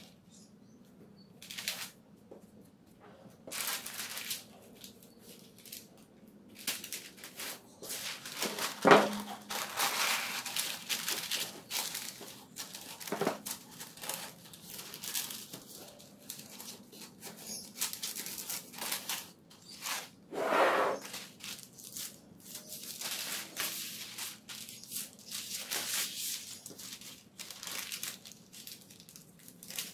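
Non-stick baking paper being folded and creased by hand, crinkling and rustling in irregular bursts, with a few louder knocks as it is pressed into a wooden soap mould.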